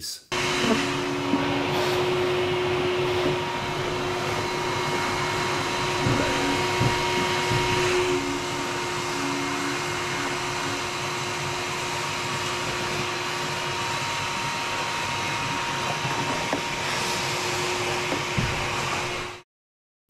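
A bee vac's vacuum motor runs steadily with a constant whine while its hose sucks bees off the exposed comb in a roof cavity. It cuts off abruptly near the end.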